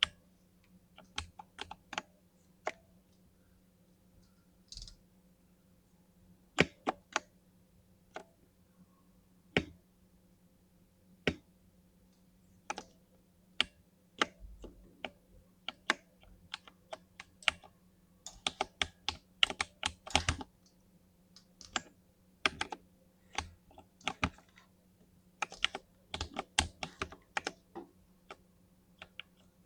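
Typing on a 60% mini mechanical keyboard with lubed linear switches. Scattered single keystrokes at first, then quicker runs of typing about two-thirds of the way through.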